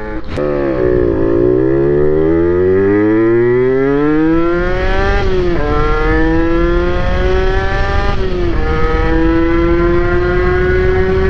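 Honda NSR80's two-stroke single-cylinder engine accelerating under way. The engine note dips briefly at first, then climbs steadily for about four seconds. It drops with an upshift about five and a half seconds in and climbs again, drops at a second upshift near eight and a half seconds, then rises slowly.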